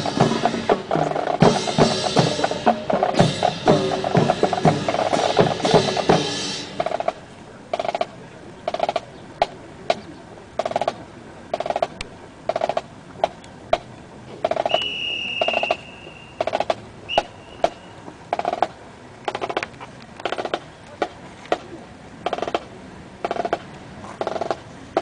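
Marching drums of a military drill team playing a dense cadence with rolls, which stops about six seconds in. A single sharp drum tap then marks a steady marching beat about once a second. Around the middle there is a brief high steady tone, heard twice.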